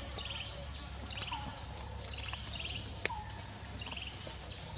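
Forest ambience: a short trilled call repeating about once a second over a steady high drone of insects. A few faint clicks, and one sharper click about three seconds in.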